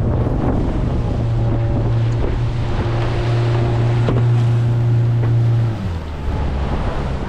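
Outboard motor of a small dory running under way at a steady note, which drops away about six seconds in, over heavy wind buffeting the microphone and the wash of waves.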